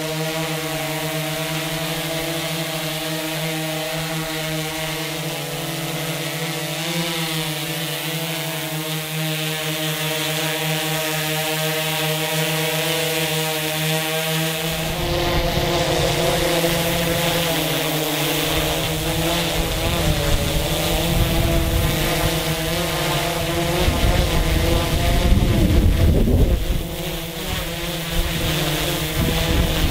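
DJI Inspire quadcopter's motors and propellers whining steadily as it hovers. About halfway through, gusty wind starts rumbling on the microphone, and the whine wavers in pitch as the drone is pushed about by the wind.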